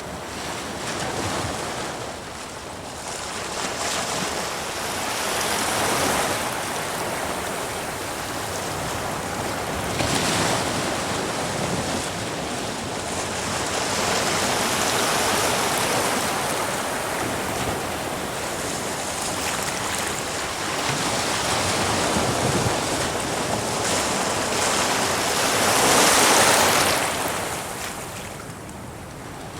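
Ocean waves surging and breaking against rocks with foaming wash between, in repeated swells every few seconds; the biggest wave breaks near the end.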